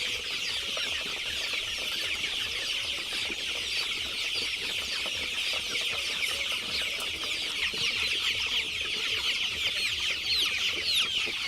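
A large flock of desi chickens calling continuously: a dense, steady chorus of many overlapping short, high-pitched calls.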